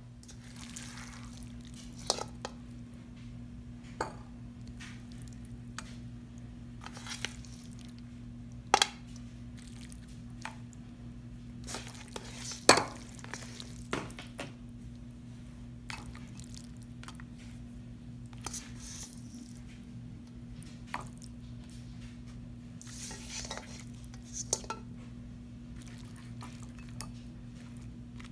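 Metal tongs clinking, clacking and scraping against a wok as a noodle stir-fry with prawns and crab is tossed and lifted out, in scattered strokes with one louder clack about halfway through. A steady low hum runs underneath.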